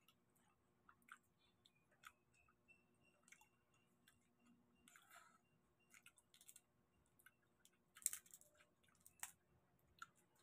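Faint eating sounds: scattered soft clicks and smacks of chewing, mixed with the crackle of whole prawns' shells being peeled by hand. The loudest crackle comes about eight seconds in.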